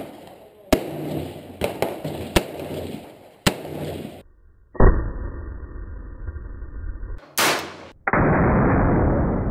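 Rifle shots on a shooting range: about half a dozen sharp cracks with echo in the first four seconds. After that the sound turns muffled and dull, with a heavy thud about five seconds in and a loud steady rumble from about eight seconds in.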